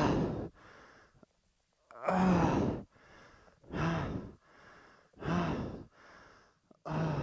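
A person breathing heavily and laboriously, each exhale a loud voiced sigh or groan falling in pitch, about every one and a half seconds, with a quieter breathy inhale between them.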